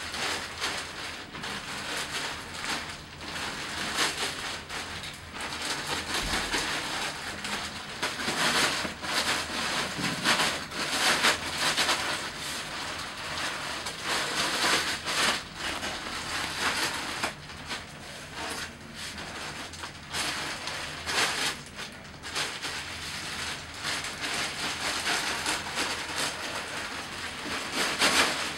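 Crinkling and rustling of knee-length plastic boot covers as they are pulled on over shoes, in irregular bursts that come and go.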